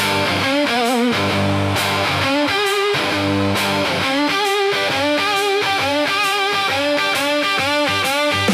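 Blues-rock instrumental intro: an electric guitar plays lead licks with wavering, vibrato-bent notes over a steady bass and rhythm backing.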